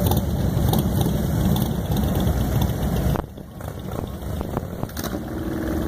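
Several motorcycle engines running together in a low rumble. The sound drops away sharply about three seconds in, then builds back up.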